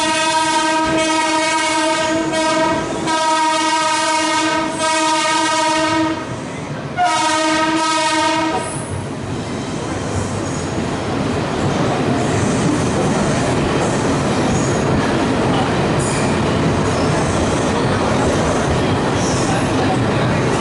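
WAP5 electric locomotive's horn sounding a long blast, then after a second's pause a shorter second blast. After that the train's running noise takes over: steady rumble with wheel clatter and squeal over the rails.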